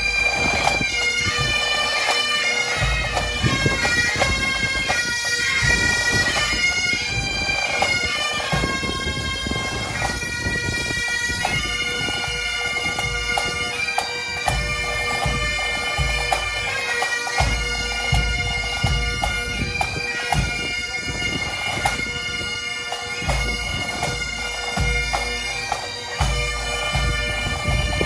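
Bagpipes playing a tune: a steady drone sounds under a shifting chanter melody.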